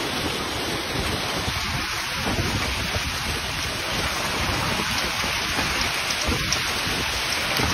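Heavy downpour of rain and hail pelting the street, pavement and parked cars: a steady, dense hiss with a low rumble underneath.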